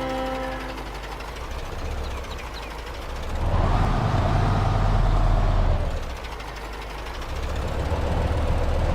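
Radio-controlled model vehicle running with a low rumble and a motor whine that rises and swells about three and a half seconds in, drops away around six seconds, then climbs again near the end.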